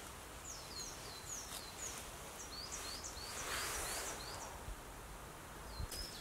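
A small songbird repeating short, high, downward-slurred notes about twice a second, in runs with short pauses between them. A soft rustle of sticks and dry soil being handled comes about three and a half seconds in.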